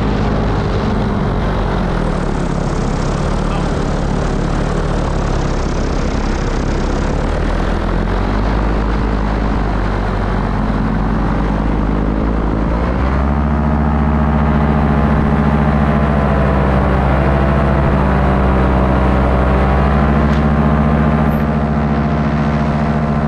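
Paramotor engine and propeller running steadily in flight, with rushing wind. About halfway through the revs rise and the engine note steps up in pitch, then holds at the higher pitch.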